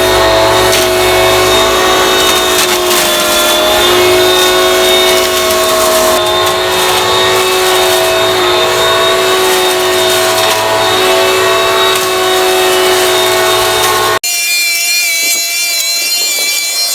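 Garden Groom Midi corded electric hedge trimmer running steadily, its motor's whine over the suction rush of its fan, a sound like a vacuum cleaner, as it trims and draws in the clippings. About fourteen seconds in the sound cuts off abruptly and is replaced by a thinner, higher-pitched whine.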